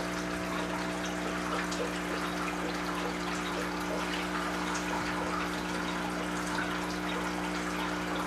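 Aquarium filter running: a steady trickle of water over a constant low hum.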